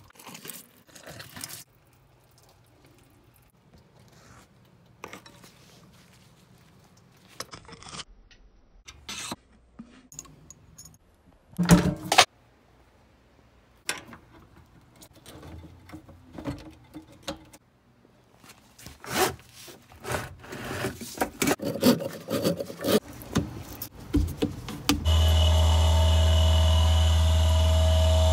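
Hands and tools working on under-sink PVC drain fittings and a garbage disposal mount: scattered clicks, knocks and scrapes, with a loud cluster of knocks about twelve seconds in. About twenty-five seconds in, a steady loud hum starts: the newly installed garbage disposal's motor running.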